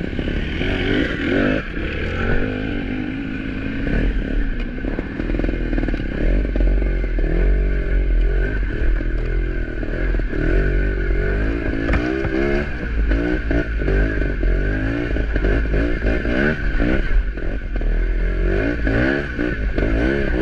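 Off-road vehicle engine running under load, its pitch rising and falling as the throttle is worked, with frequent rattles and knocks as the vehicle crosses rough ground.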